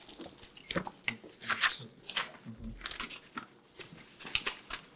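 Sheets of paper rustling as pages of a case file are handled and leafed through, in several short crackly bursts.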